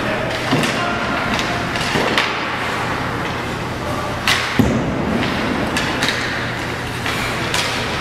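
Ice hockey play in an arena: skates scraping the ice and sharp knocks of sticks, puck and boards, scattered through, the loudest a pair of knocks about four and a half seconds in, over a steady rink hum and echo.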